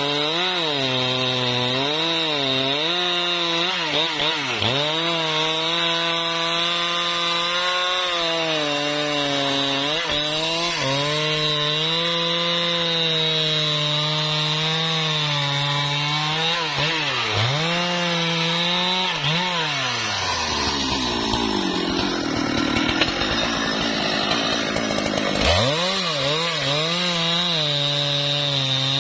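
Husqvarna 395 XP two-stroke chainsaw running at high revs through a cut in a tree, its engine note dipping and recovering over and over as the chain bites into the wood. About twenty seconds in the engine speed falls right down for several seconds, then revs back up sharply.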